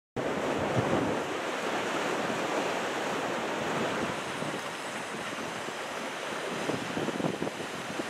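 Steady wash of large typhoon-swell surf breaking offshore, with wind buffeting the microphone in irregular gusts that come more often near the end.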